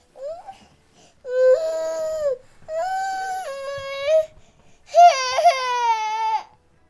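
Infant crying: a short rising whimper, then three long wails of about one to one and a half seconds each, with short pauses between them.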